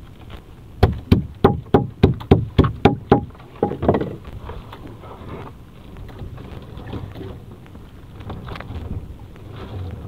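A quick run of about nine sharp knocks, roughly three a second, each with a short ring, then two more a moment later, over a low steady rumble.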